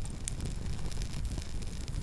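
Campfire burning with a steady low rumble and scattered sharp crackles and pops from the burning wood.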